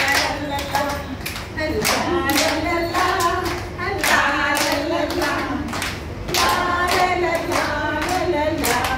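A group of women singing a song together, with hand clapping to a steady beat.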